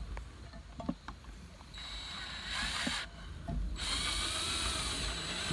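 Cordless drill, switched out of hammer mode, driving a screw into vinyl siding: a few small clicks, then the motor runs for about a second, stops briefly, and runs again for the last couple of seconds.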